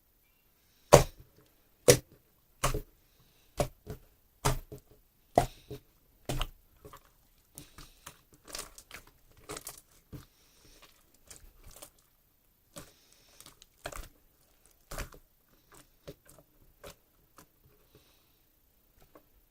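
Small objects being handled: a series of sharp taps about once a second, then quicker, softer clicks and rustles, with a few last taps near the end.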